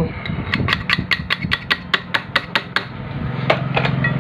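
A rapid, even series of sharp taps or clicks, about five a second, stopping after about two seconds; a little later a low steady hum starts.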